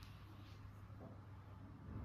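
Near silence: a low steady hum with a few faint soft clicks.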